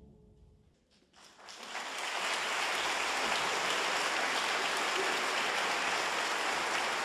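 The choir's final chord dying away in the hall's reverberation, then audience applause breaking out about a second in and continuing steadily.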